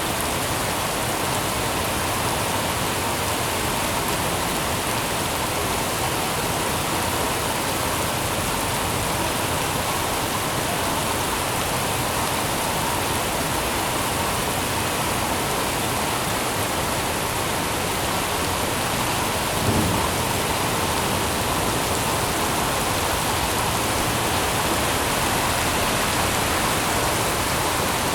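Steady rain falling, a dense, even hiss that does not let up. About two-thirds of the way through there is a single brief low thump.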